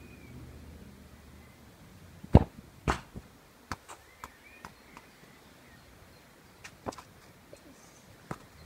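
A football kicked hard on grass with a sharp thud about two seconds in. A second hit follows about half a second later, then several fainter knocks.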